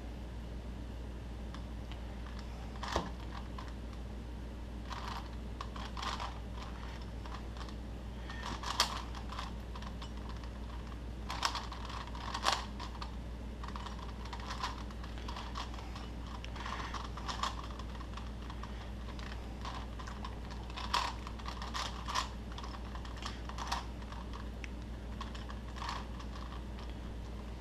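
Plastic puzzle cube being turned by hand: scattered clicks and clacks of its layers turning, coming singly and in short irregular clusters, over a steady low hum.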